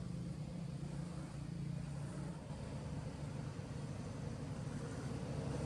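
Steady low hum of a running engine, with a background hiss.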